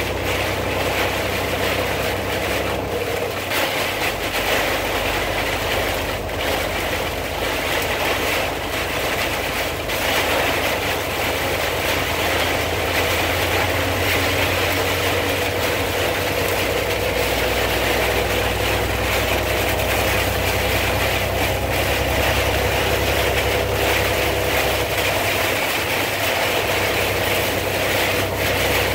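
Wind and rain on a moving car in a severe storm, heard from inside the cabin: a steady loud hiss over a low rumble of engine and road noise.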